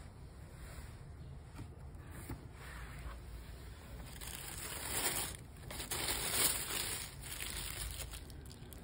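Thin tissue paper crinkling and rustling as it is folded back off a pair of sneakers in a cardboard shoebox, loudest in two stretches around the middle.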